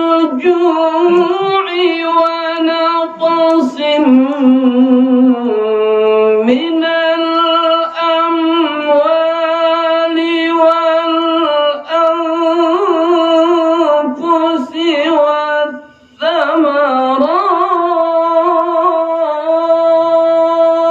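A male qari reciting the Quran in the melodic tilawah style into a handheld microphone. The phrases are long, held and ornamented, with a short pause for breath about three-quarters of the way through.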